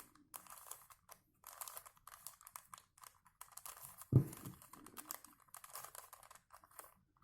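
Plastic Rubik's Cube being turned through a sequence of layer twists: quick clicky, rattling bursts with short pauses between the turns, and one louder dull knock about four seconds in.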